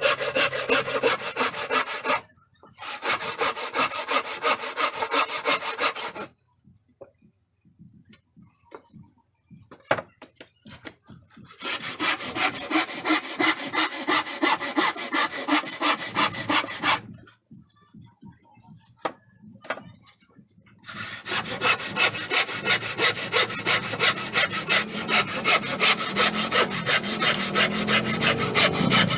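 Handsaw cutting through a wooden plank in quick, rhythmic back-and-forth strokes, about three a second. The sawing stops briefly about two seconds in, then pauses twice for several seconds, with only a few faint knocks in between, before running on to the end.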